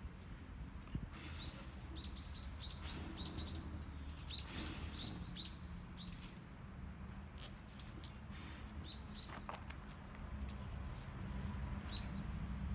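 Small birds chirping: a quick run of short chirps, thickest in the first half and thinning out later, over a low steady rumble.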